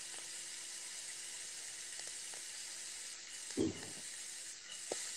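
Steady low hiss of food sizzling in a frying pan, with a brief voice sound about three and a half seconds in.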